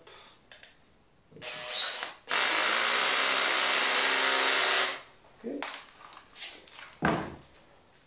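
A handheld power tool runs steadily for about two and a half seconds, starting a little over two seconds in. Quieter handling knocks come before and after it, the sharpest one near the end.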